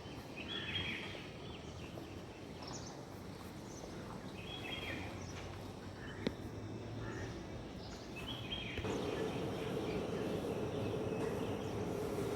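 Birds calling now and then over a steady outdoor background hiss, with a single sharp click about six seconds in. A steady low hum comes in about nine seconds in and carries on.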